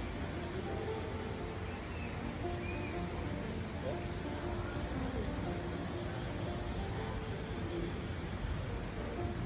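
Crickets trilling in one continuous, unbroken high-pitched drone.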